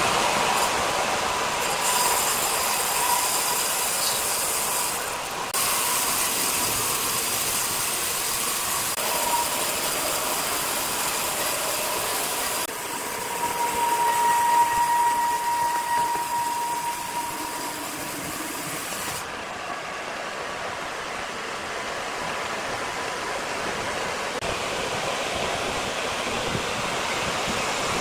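Horizontal band sawmill running with its blade cutting lengthwise through a large log: a steady hissing machine noise with a faint whine that changes abruptly in tone a few times.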